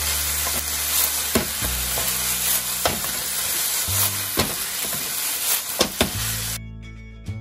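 Cabbage and pork sizzling hard in a non-stick frying pan while a wooden spatula stirs and turns them, with repeated sharp scrapes and knocks of the spatula on the pan. The sizzle cuts off suddenly near the end.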